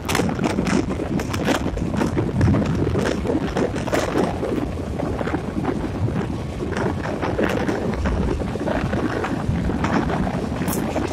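Running noise of a moving passenger train heard from an open coach door, a steady rumble with many irregular knocks, and wind buffeting the microphone.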